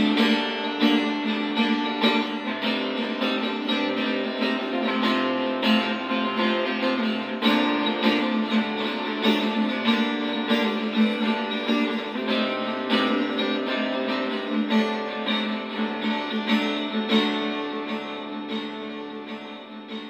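Acoustic guitar strummed in a steady rhythm, without singing, dying away over the last few seconds.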